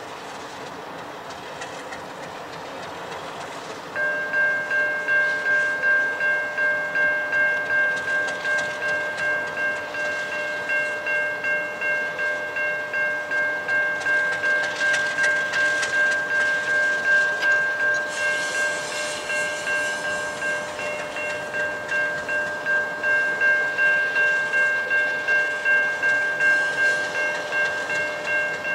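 A level crossing bell starts ringing about four seconds in and keeps ringing steadily, pulsing a little faster than once a second. Underneath is the low running of a diesel locomotive standing at idle.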